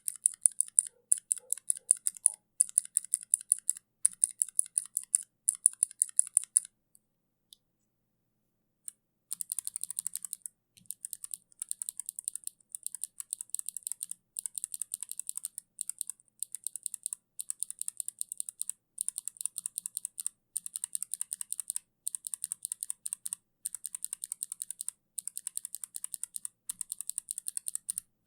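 Typing on a mechanical keyboard fitted with Kailh switches, in quick runs of key clicks. About seven seconds in the typing stops for roughly two seconds, then resumes softer and in denser, steadier runs.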